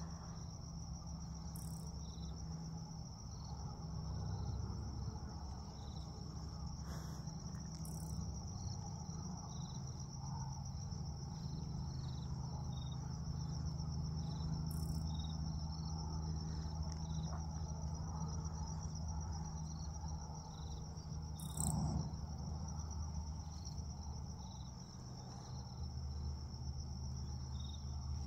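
Insects trilling steadily in a high, unbroken pulsing tone, with scattered short chirps below it. A low rumble runs underneath, and a few soft clicks and one louder knock come about three quarters of the way through.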